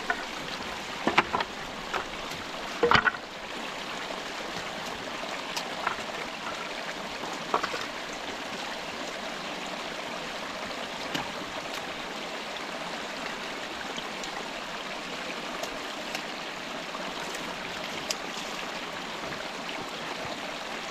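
Small rocky stream running and splashing over stones, a steady rushing hiss. A few sharp knocks sound in the first three seconds, with fainter clicks later, as boards are handled in the stream bed.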